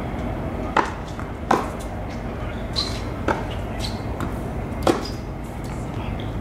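Tennis ball struck by racquets and bouncing on a hard court during a rally: four sharp pops spaced one to two seconds apart, over steady background noise.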